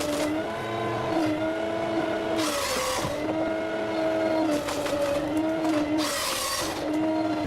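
A heavy machine's drive running with a whining tone whose pitch steps up and down, as under changing load. Twice, about three and a half seconds apart, a brief rush of hissing, tearing noise comes over it.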